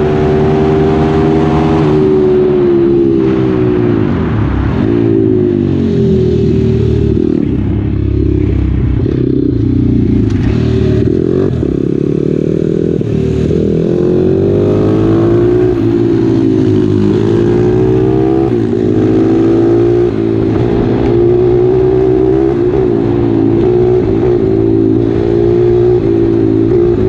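140cc single-cylinder four-stroke pitbike engine heard on board at speed, its pitch climbing through the gears and dropping each time the throttle is closed.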